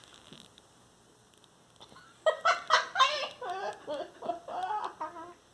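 About two seconds of quiet, then a run of short, high-pitched vocal sounds that rise and fall in pitch until the end.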